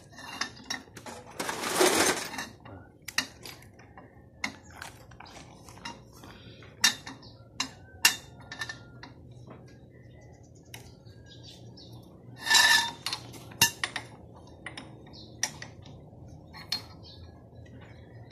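Steel tools and a long steel pipe, used as a cheater bar on a wrench, clinking and clanking against a removed VW Beetle engine. There are many sharp knocks, and two louder, ringing metallic clatters, one about two seconds in and one about twelve seconds in.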